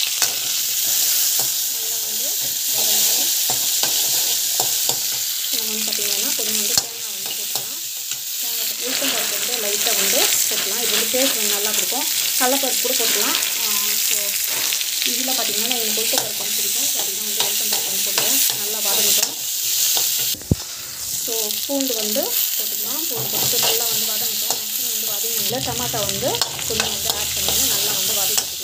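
Chopped onion, dried red chillies and dal sizzling as they fry in hot oil in a pan, with a steel spoon scraping and stirring them continuously.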